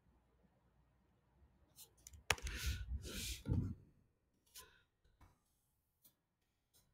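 Scattered clicks of a computer keyboard and mouse as a command is typed and a file path is selected and pasted. About two seconds in comes a sharp, louder click followed by a second or so of rustling noise, then a few single clicks.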